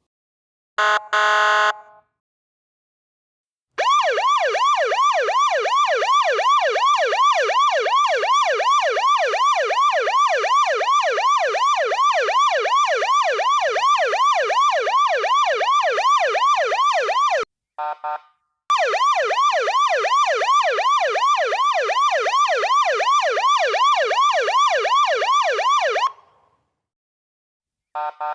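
Electronic police siren in a fast yelp, its pitch sweeping up and down about three times a second in two long runs with a brief blip between them. A short, steady horn-like blast sounds about a second in.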